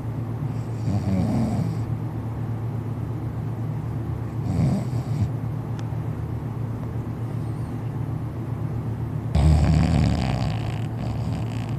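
Loud snoring from someone in deep sleep: three long snores about four seconds apart, the last the loudest, over a steady low drone.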